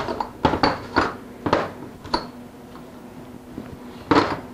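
Lead weights being lifted and set down, knocking against each other and the wood: a quick run of sharp clunks over the first two seconds, then one louder clunk near the end.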